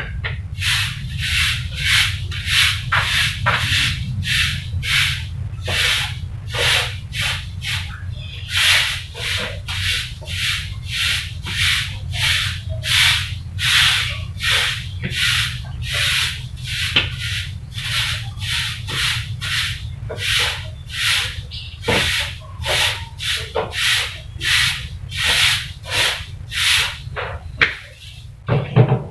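Broom sweeping a concrete yard: a steady run of short, scratchy strokes, about two or three a second.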